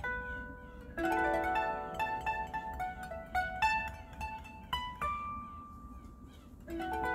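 Homemade ten-string koto built on a longboard skateboard deck, plucked by hand. Several notes are struck together about a second in, followed by a run of single ringing notes. One note is left ringing at around five seconds, and a new run begins near the end.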